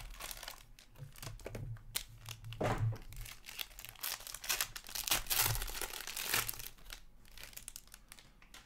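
Crinkling and tearing of a hockey trading-card pack wrapper as it is torn open by hand, with rustling as the cards are pulled out; loudest in the middle, easing off near the end.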